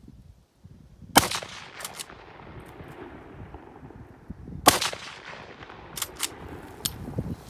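Two rifle shots from a Model 1889 Schmidt-Rubin straight-pull rifle firing 7.5x55 Swiss ammunition, about three and a half seconds apart, each followed by a long fading echo. Sharp metallic clicks after each shot as the bolt is worked to chamber the next round.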